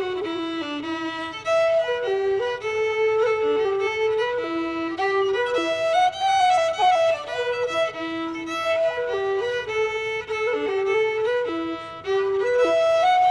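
Violin played as a fiddle, alone, playing a tune: a single melody of held notes that step up and down, with slides between some of them.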